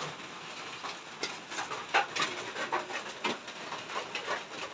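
Rain on a corrugated roof: a steady hiss with irregular sharp taps of drops.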